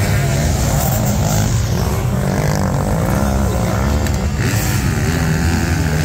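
Several motocross bike engines revving at once, each rising and falling in pitch as the riders accelerate and ease off, overlapping into one loud continuous sound.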